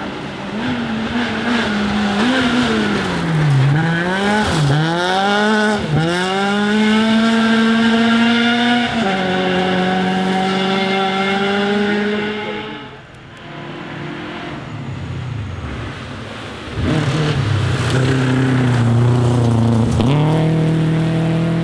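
Two rally cars driven hard one after the other. First, a white hatchback's engine rises and falls in pitch as the driver lifts off and shifts, then holds a steadier note and fades away around a bend. After a short lull, a Subaru Impreza rally car comes through loud at high revs, with a quick dip in pitch for a gear change near the end.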